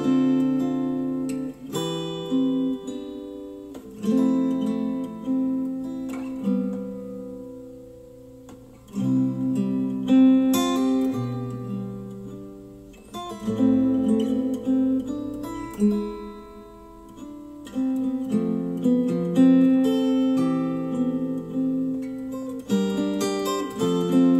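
Acoustic guitar music, chords plucked and strummed and left to ring out, played back through a pair of JBL HDi 1600 bookshelf speakers driven by an IOTAVX SA3 integrated amplifier.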